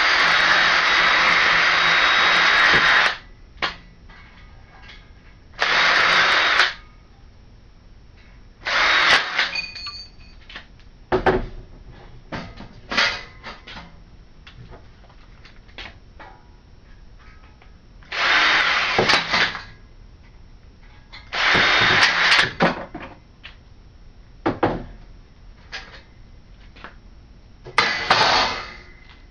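Drill with a 1/8-inch bit drilling out the rivets of a metal PC case. It runs for about three seconds, then in five short bursts, with scattered clicks and knocks of metal between them.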